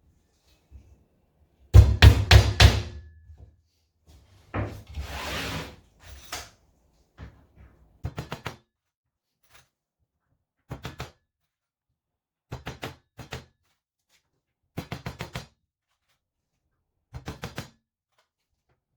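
Hammer tapping 2-inch galvanized nails part-way into the wooden walls of a Commercial hive super, setting them ready for assembly. A run of four heavy blows comes about two seconds in, then quick groups of three to five lighter taps every couple of seconds, with a brief scrape about five seconds in.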